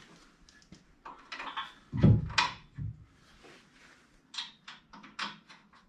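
A steel tire carrier bumper being worked onto a Jeep's frame: a heavy thump about two seconds in, with short scrapes and clunks of metal on metal before and after it, and a quick run of short scrapes near the end.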